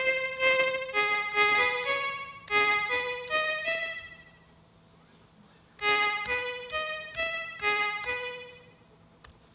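Teenage Engineering OP-1 synthesizer playing a short melody of single held notes with slight vibrato, in two phrases with a pause of about a second and a half between them.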